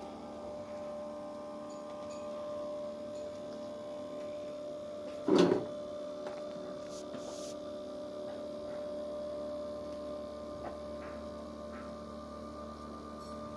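CNC pen plotter's motors running with a steady whine of several held tones. A short, much louder burst comes about five seconds in, and a few faint ticks follow later.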